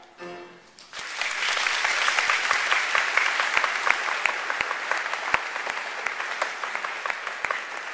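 The last note of a children's choir dies away, and about a second in an audience starts applauding steadily.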